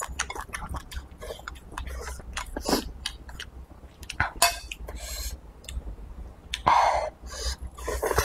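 Close-up eating sounds: wet chewing and mouth clicks as food is shovelled in from a bowl held to the lips with chopsticks. There are several longer slurps in the second half, the loudest a little before the end.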